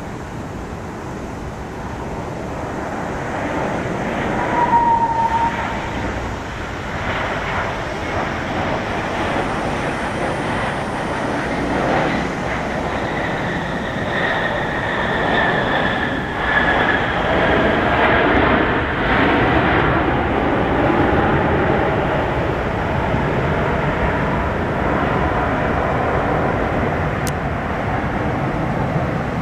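Jet engines of a Boeing 737-800 landing: a steady roar that builds over the first few seconds and then holds, with a thin whine that slides slightly down in pitch partway through.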